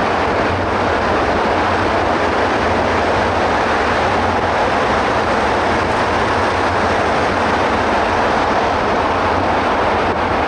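Steady wind rushing over the microphone of a camera carried on a bicycle riding at speed, an even, unbroken noise.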